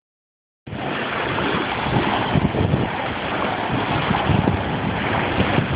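Wind gusting against the microphone over the wash of small waves on a sandy shore, starting just under a second in.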